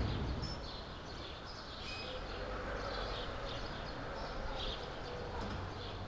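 Outdoor street ambience: small birds chirping over a steady low rumble of city traffic.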